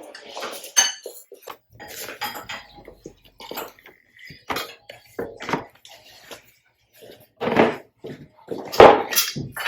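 Irregular clatter and knocks of the PowerXL Smokeless Grill Pro's removable metal grill parts being handled, with splashes of water as they are washed; the loudest knocks come near the end.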